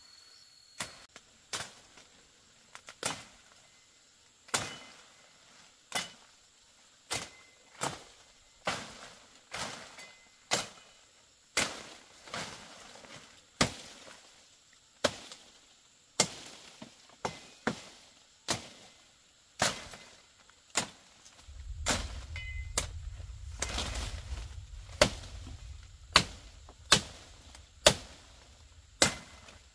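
A blade chopping bamboo and brush, about one sharp strike every second or so, with many strikes in a row. A low rumble joins in for a few seconds past the middle.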